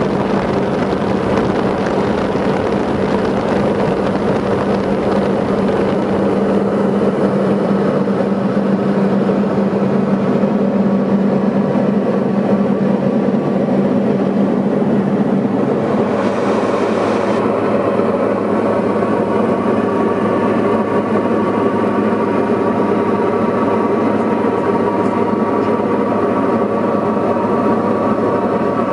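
Steady drone of a Diamond DA40 light aircraft's engine and propeller in cruise, heard inside the cabin, with a brief rise in hiss about halfway through.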